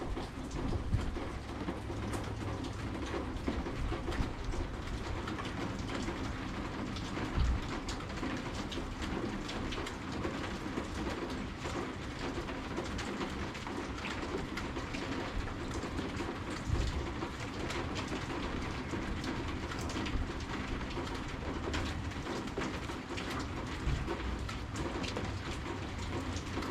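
Steady rain falling, with many separate drops and drips ticking on hard surfaces, and a bird calling in the background.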